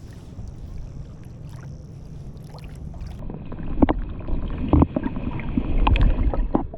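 Wind buffeting the action camera's microphone on an inflatable fishing boat, a steady low rumble, with a few sharp thumps and louder gusts in the second half.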